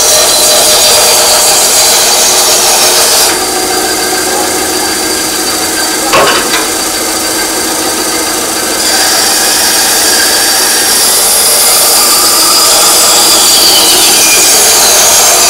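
A TOTAL benchtop band saw running and cutting through a block of wood fed with the miter gauge. The sound drops somewhat about three seconds in, a short knock comes about six seconds in, and it gets louder again from about nine seconds in.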